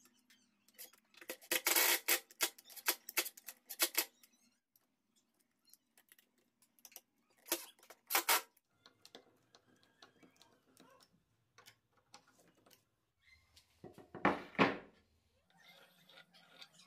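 Makita DTD155 cordless impact driver hammering as it drives screws: a long run of rapid impacts about a second in, two short bursts around eight seconds, and another burst near the end.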